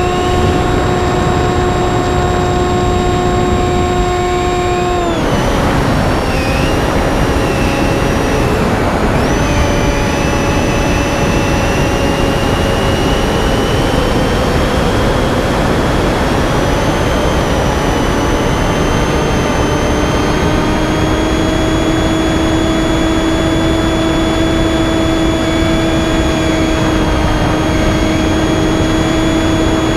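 Electric motor and propeller of a Finwing Penguin RC plane whining in flight, over a steady rush of wind and vibration noise. The pitch drops sharply about five seconds in as the throttle comes back, then slowly climbs back up and holds steady again.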